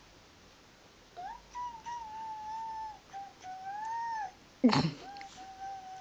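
A young child's high-pitched, drawn-out squealing vocalisations, several long arching notes in a row, with one brief, much louder burst about three-quarters of the way through.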